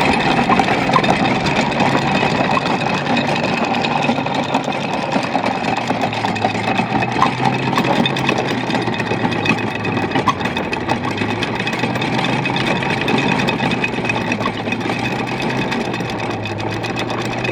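A sailboat's engine running steadily at low revs, a continuous low hum under a noisy wash.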